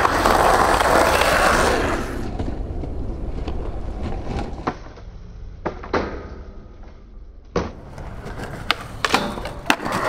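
Skateboard wheels rolling fast over concrete, loud at the start and again at the end, with several sharp clacks of the board hitting the ground and obstacles in between.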